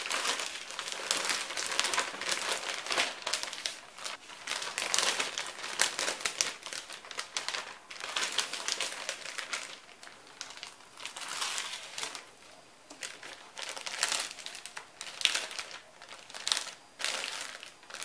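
Clear plastic zip bag crinkling and rustling in irregular bursts as collard green leaves and a paper towel are packed into it and the bag is pressed flat to push the air out.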